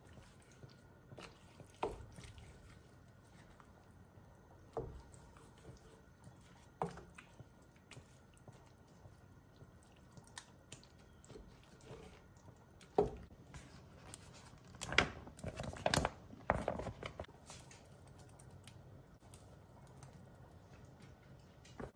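Wooden spoon stirring chunky soup ingredients in an enameled Dutch oven, giving scattered soft knocks and scrapes against the pot, with a busier run of them a little past halfway.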